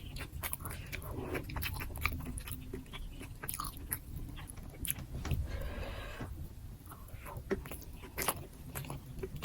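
Close-up chewing of a mouthful of nasi gila fried rice, with many small wet mouth clicks and smacks.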